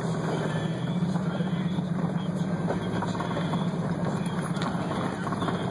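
Jeep engine pulling steadily at low speed in four-wheel-drive low range, heard from inside the open cab as a constant low drone, with the rough rumble of tyres rolling over a rocky gravel track and a few light knocks.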